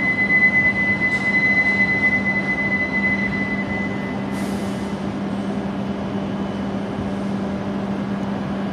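Departing E7 series shinkansen at a station platform: a steady high tone for about three and a half seconds, then a short hiss of air about four seconds in, over the steady low hum of the train.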